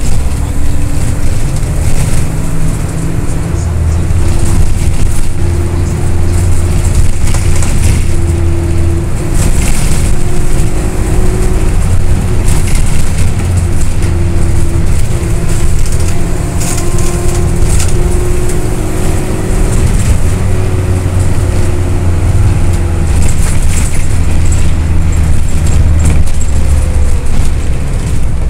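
Green minibus engine running while it drives, heard from inside the passenger cabin: a loud, steady low drone whose pitch wavers slightly as it pulls. Brief rattles and clicks come from the cabin and the road.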